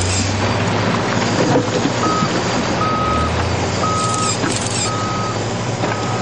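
A vehicle's reversing alarm beeping about once a second, starting about two seconds in, over a steady heavy engine rumble.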